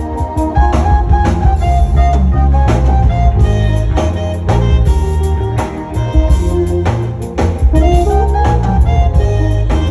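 Live band playing amplified music, with a heavy bass line, drum kit beats and a melody line on top.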